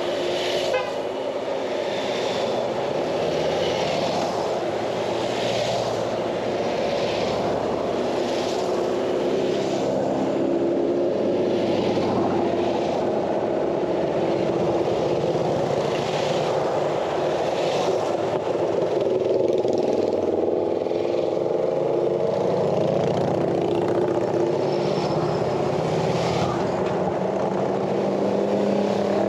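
Harley-Davidson Pan America's V-twin engine running under way, its pitch rising and falling gently with the throttle, mixed with steady wind and road noise.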